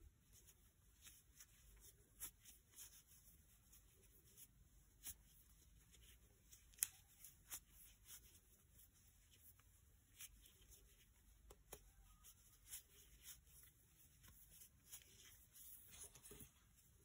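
Near silence with faint, irregular small clicks and soft rubbing: a crochet hook working chunky cotton t-shirt yarn into single crochets. One sharper click about seven seconds in.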